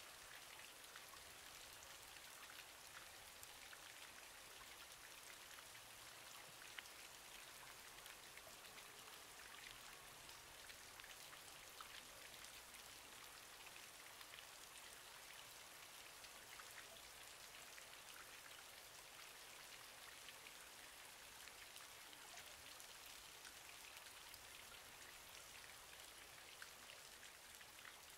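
Faint, steady crackling hiss made of many tiny ticks, with no tone or rhythm, much like light rain on a surface.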